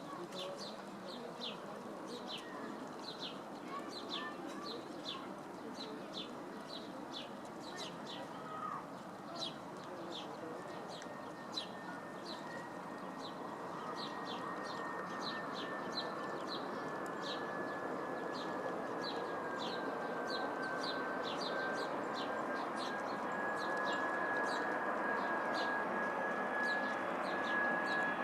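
A jet airliner on approach, heard as a rising rush with a steady whine, growing louder over the second half. Throughout, a bird chirps repeatedly, about two short calls a second.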